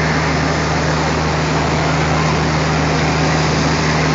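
ALCO diesel locomotive engine running steadily, a deep, even drone heard from on board as the locomotive creeps towards the coach to be coupled.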